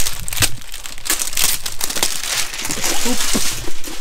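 Clear plastic wrapping on a small cardboard toy box crinkling and rustling in quick irregular crackles as it is pulled and torn off by hand.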